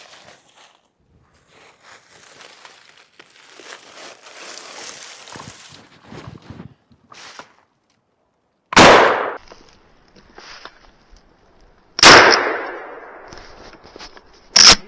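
Gunshots fired at a squirrel. Two loud shots about three seconds apart each ring out for about a second, and a third, shorter sharp crack comes near the end. Before them there is quieter rustling.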